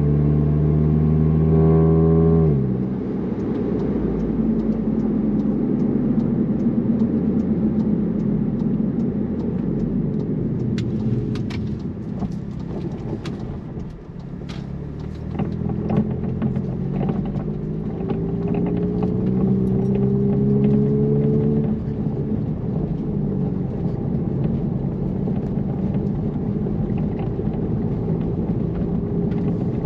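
2017 VW Alltrack's turbocharged four-cylinder engine running through an AWE Touring cat-back exhaust on the road. A steady engine note for the first couple of seconds drops away to road noise. About halfway through the engine note rises through an acceleration, then cuts off abruptly about two-thirds of the way through.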